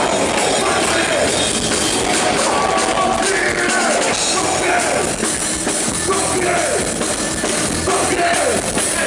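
A heavy metal band playing loudly and without pause, with a drum kit and electric guitars.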